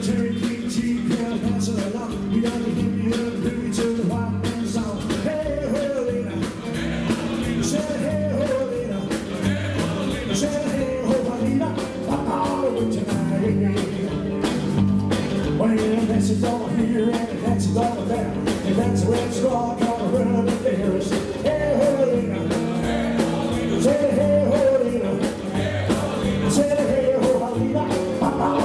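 Live rockabilly band playing: electric guitar, upright double bass and drums at a steady beat, with singing.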